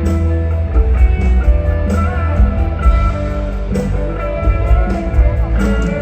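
Amplified mor lam band music: a plucked-string melody over heavy bass and a steady beat, with no singing.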